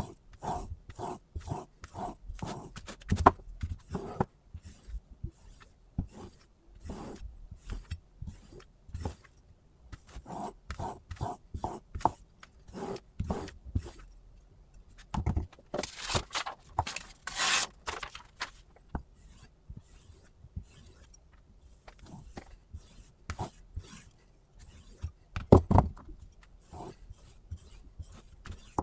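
Chef's knife blade stroked back and forth across a whetstone while held at a fixed angle in a Hapstone T1 angle guide: quick repeated scraping strokes, about two to three a second, with a few louder knocks, the loudest near the end.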